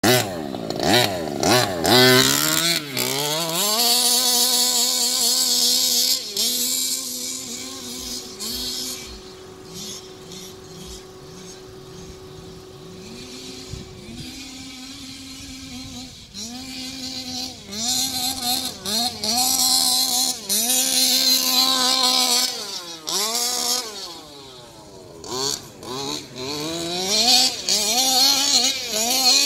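1/5-scale FG monster truck's two-stroke petrol engine revving up and down again and again under throttle. It is quieter for a stretch in the middle while the truck is far off, then comes back louder with quick revs near the end.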